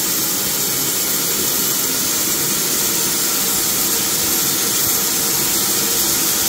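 EGO 56-volt cordless pressure washer running on its turbo setting: the motor and pump whine steadily under the hiss of a 0-degree nozzle's jet striking concrete.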